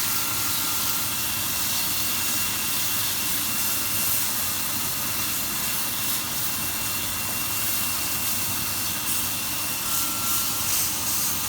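Chicken steak frying in a hot pan just after being flipped, giving a steady sizzle.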